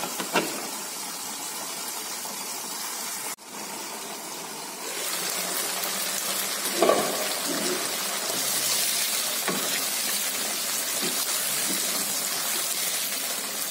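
Red chillies and garlic frying in hot oil in a pan, a steady sizzle that grows louder about five seconds in. A few light knocks of a wooden spatula stirring them come in the second half.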